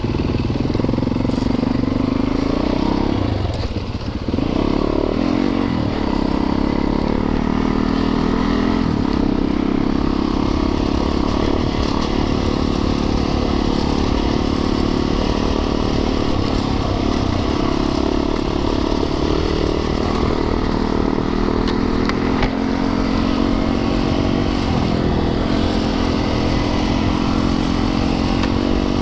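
Yamaha YZ450FX's single-cylinder four-stroke engine being ridden, its revs rising and falling with the throttle, with a brief drop in revs about four seconds in before it picks back up.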